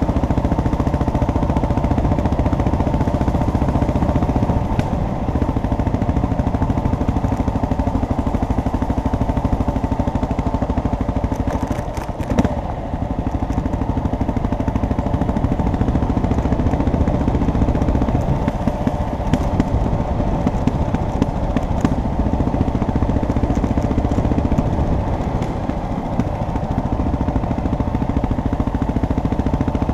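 A vehicle driving along a dirt road: steady engine hum over continuous rumbling road noise.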